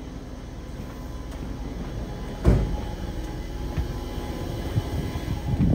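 A Yokohama Municipal Subway 3000R train standing at the platform with its doors open, giving a steady low hum from its running equipment that grows slightly louder. A single sharp thump about two and a half seconds in, and a few more knocks near the end.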